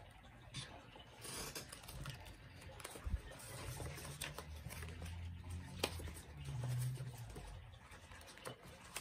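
Old paper letters rustling and crinkling as they are lifted and leafed through by hand, with many light taps and clicks; a sharper tap comes about three seconds in and another near six seconds.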